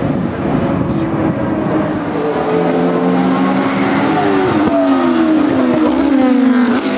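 GT race car engines running hard: one car pulling through a corner, then the V8 of a Chevrolet Corvette C6 Z06R going by, its engine note falling steadily over the last two seconds or so.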